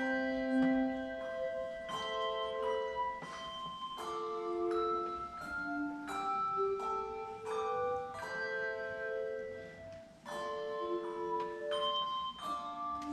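Handbells played by a trio: a melody and chords of struck notes that ring on and overlap. There is a brief break about ten seconds in.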